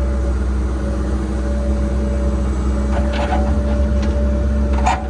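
Cat 306 excavator's diesel engine running steadily under load with a steady whine, while the bucket digs, giving short clanks about three seconds in and again near the end.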